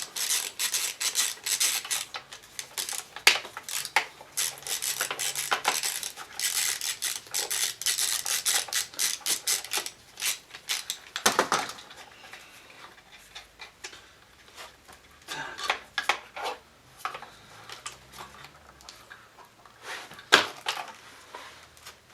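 Hand tools and small metal parts clinking and rattling as a scooter's carburettor is unbolted, in quick runs of clicks that thin out about halfway through, with one sharp clack near the end.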